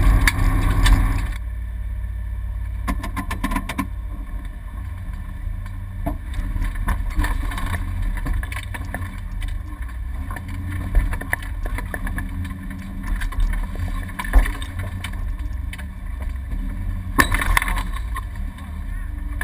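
Rally car driving on a gravel forest road, heard inside the caged cabin: a loud engine run that drops off sharply about a second in, then a steady low rumble of engine and road noise with scattered clicks and knocks.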